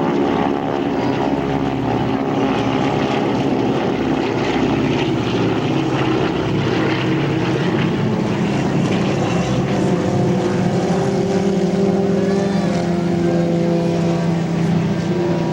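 North American T-6 Texan trainers' Pratt & Whitney R-1340 radial engines and propellers droning steadily as the aircraft fly a low pass.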